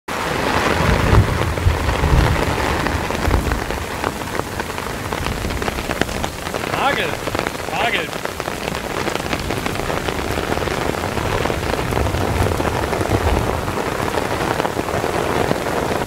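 Heavy rain falling on the tarp over the tent, heard from inside, with low thunder rumbling about a second in and again near 12 s.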